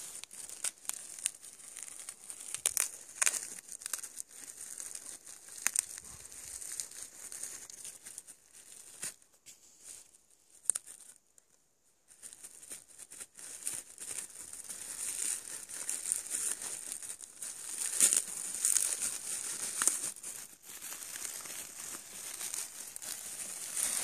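Crinkly wrapping being cut, torn and crumpled by hand as a buried package is opened, a stream of small crackles and rips that stops for a moment about halfway through.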